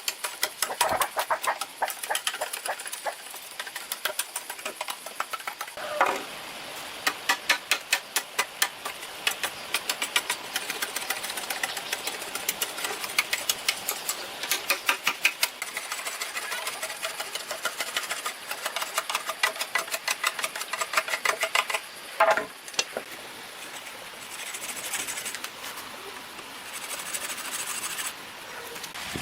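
Rapid series of sharp knocks or taps, several a second, coming in runs with short breaks.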